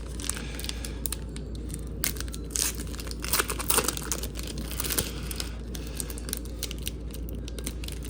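Trading-card pack wrapper crinkling and tearing open by hand, with irregular crackly rustles that are busiest a few seconds in.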